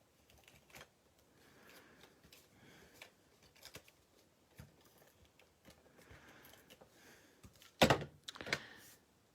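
Stampin' Seal tape-runner adhesive being run across the backs of small paper pieces: faint soft rasps and light clicks, with a sharp knock a little before the end.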